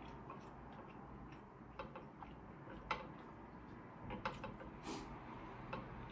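Scattered soft clicks and taps of a spoon against a glass sauce bowl and plate as food is handled, with a brief rustle about five seconds in.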